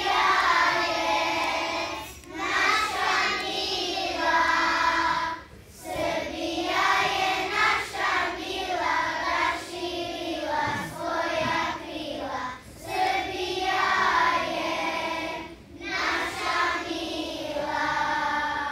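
A group of children singing together, in phrases broken by short pauses.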